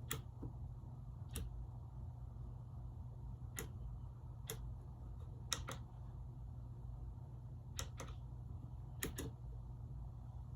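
A few scattered sharp clicks at irregular intervals, some in quick pairs, over a steady low hum.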